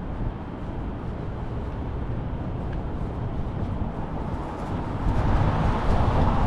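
Street traffic: a steady low rumble of vehicles, with a vehicle passing closer and louder near the end.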